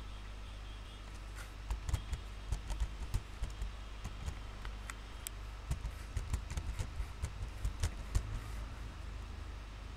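Computer keyboard typing: irregular runs of key clicks for about seven seconds as an email address is deleted and typed again. A steady low hum runs underneath.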